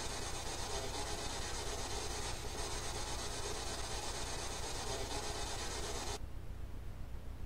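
Hiss and crackle of a replayed field recording over a steady low electrical hum, with no clear voice standing out; the investigators caption this stretch as an EVP saying 'pas envie'. The hiss cuts off suddenly near the end, leaving only the hum.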